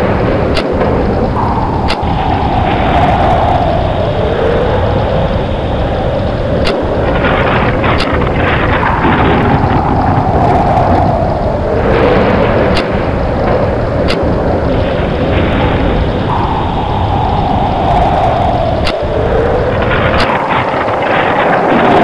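Storm wind howling over a heavy low rumble, with gusts that whistle downward in pitch about every six seconds and pairs of sharp ticks, the same pattern repeating like a loop.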